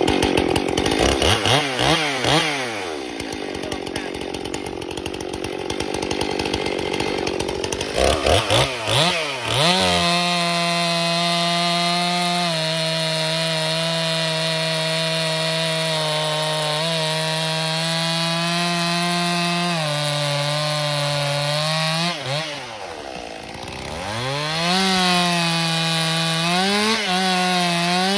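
Stihl chainsaw at full throttle cutting through a pine log, its engine note held high and sagging slightly as the bar bites. It revs up and down as cuts start and finish, drops off sharply about two-thirds through, then revs back up for the next cut.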